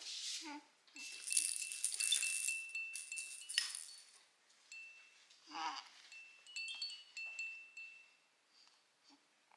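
A chiming baby toy jingling and ringing in several shaken bursts, its bell-like tones hanging on between them. A baby makes short cooing sounds about half a second in and again just past the middle.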